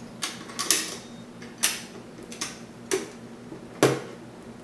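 Latches on the back of a Nauticam NA-7D underwater camera housing being snapped shut: a run of sharp clicks, about six, irregularly spaced.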